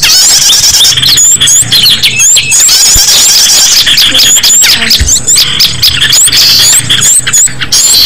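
Bird-lure (pikat) recording of many small songbirds calling at once: a dense, loud tangle of short high chirps and twitters, with quick hooked notes repeating over and over.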